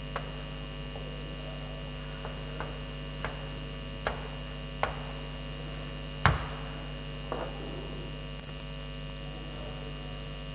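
Steady electrical mains hum, with a few short, sharp taps of chalk on a blackboard as words are written; the loudest knock comes about six seconds in.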